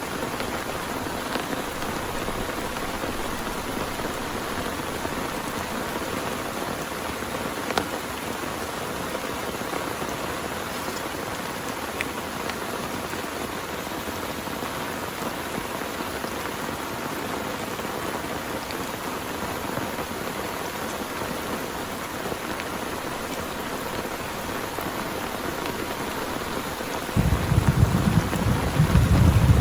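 Steady heavy rain with a few sharper drop ticks. Near the end a loud, low thunder rumble starts suddenly and carries on.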